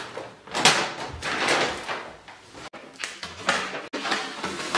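Paper takeaway bags rustling and clear plastic food containers being taken out and set down on a table, a quick run of crinkles and light knocks.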